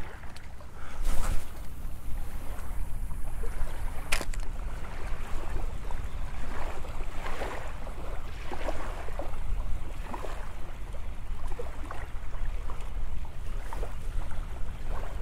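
Wind buffeting the microphone and small waves lapping on a sandy shore, with a louder gust about a second in and a single sharp click about four seconds in.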